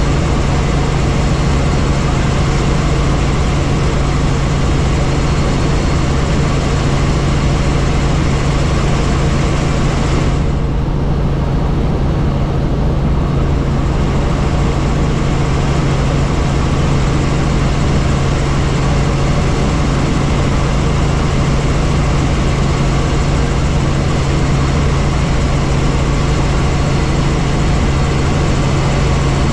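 Helicopter heard from inside the cabin in flight: a steady, loud drone of turbine and rotor with a low hum under a wide hiss. The hiss dulls briefly about ten seconds in.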